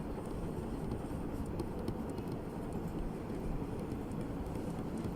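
Steady low background noise with a few faint, short scratches of a pen writing.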